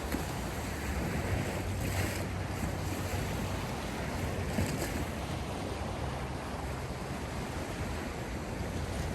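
Sea waves washing in, a steady rush of surf with two brighter swells of spray about two seconds in and again just before five seconds in.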